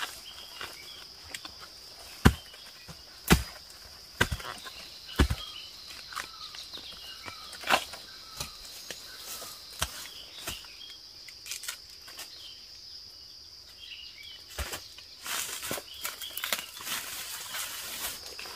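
A machete strikes into the soil and roots, digging up a bamboo shoot. Several sharp chops land about a second apart in the first half, then come lighter knocks. A steady high insect drone and small bird chirps run underneath, and dry leaves rustle underfoot near the end.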